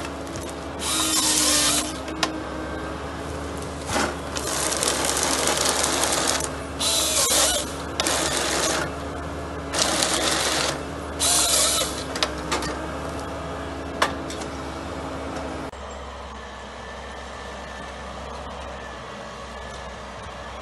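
Vimek 404 SE small forest harvester working, its diesel engine running steadily under about six bursts of loud noise and a few sharp knocks from the harvester head as it cuts and feeds a small tree. About sixteen seconds in, the sound cuts to the quieter, steady running of a Vimek 610 SE forwarder driving with a load of logs.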